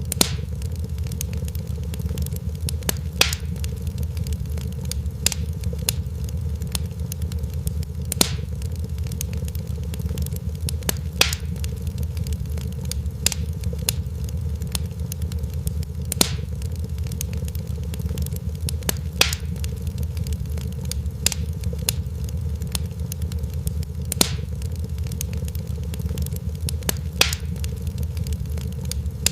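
Fireplace fire crackling: a steady low rumble with frequent sharp pops and snaps. The loudest pops come every few seconds in a pattern that repeats about every eight seconds.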